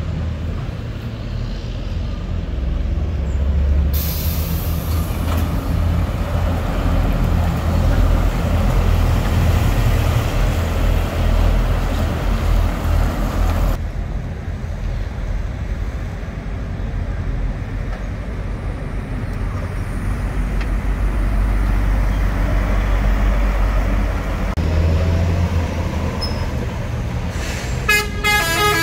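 Heavy trucks' diesel engines rumbling as they pull away and drive past. A long hiss runs for about ten seconds in the first half. Right at the end a truck horn sounds in short repeated blasts.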